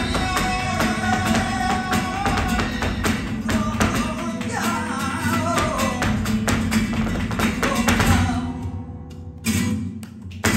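Live flamenco: a male dancer's footwork stamping rhythmically over cante singing, palmas hand-clapping and Spanish guitar. About eight seconds in the music drops away, leaving a few loud heel stamps near the end.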